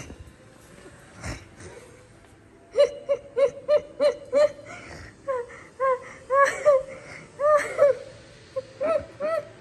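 French bulldog puppy whining: a quick run of short high yips about three seconds in, then longer whines that rise and fall in pitch.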